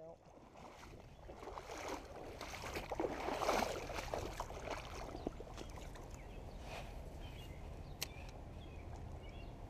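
Shallow creek water running over a riffle. A spell of rustling and clattering peaks about three to four seconds in, and a single sharp click comes about eight seconds in.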